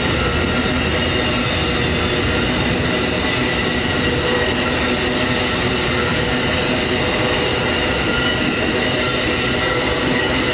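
Amtrak Auto Train's Superliner bi-level passenger cars rolling past, a steady loud rumble of wheels on rail with thin whining tones running through it.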